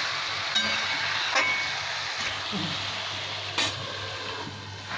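Chicken, onions and tomato sizzling in an aluminium kadai while being stirred with a spatula, with a few sharp clinks of utensil on metal; the loudest clink comes about three and a half seconds in as a glass lid is brought over the pan.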